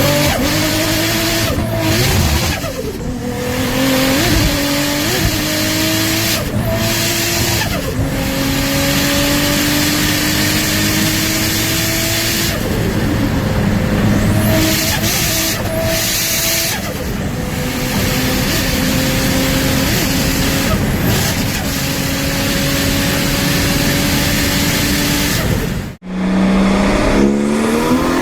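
Turbocharged car engine accelerating hard through several gears, its pitch climbing slowly in each gear and dropping at each shift, over a steady high hiss. Near the end it cuts to another car revving.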